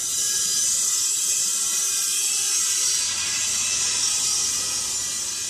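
A loud, steady high-pitched hiss that starts abruptly just before and eases off near the end, like compressed air escaping.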